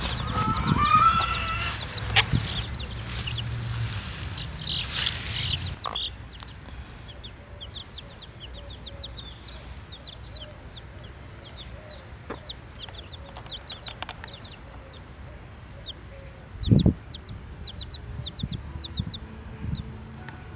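Chickens clucking loudly for the first few seconds, then baby chicks peeping in quick, high runs for the rest, with one low thump near the end.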